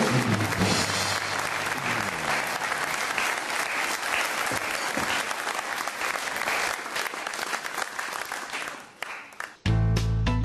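Studio audience applauding, thinning out after about nine seconds; music starts abruptly near the end.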